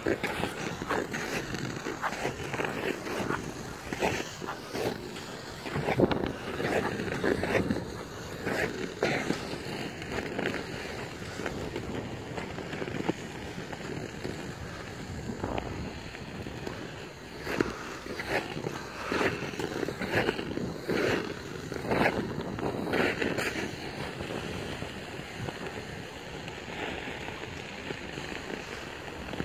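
Ice skate blades gliding and scraping over natural lake ice, with repeated irregular scraping strokes as the skater pushes off.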